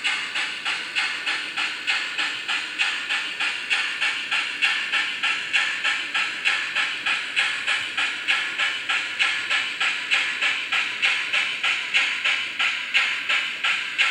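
Sound decoder of a TT-scale Tillig BR 56 (G 8.2) steam locomotive model playing steady, even steam chuffs, about three a second, through the model's small loudspeaker.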